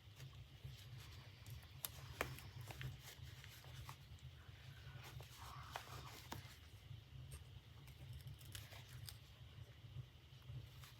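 Faint handling of fabric and small tools, a few scattered light clicks at irregular moments, over a low steady hum.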